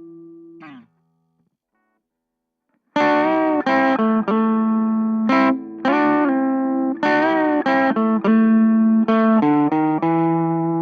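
Electric guitar played dry through an Orange Micro Terror valve-preamp amp head. A ringing chord is damped with a brief string squeak under a second in; after about two seconds of silence a run of picked notes and string bends starts, ending on a chord left ringing.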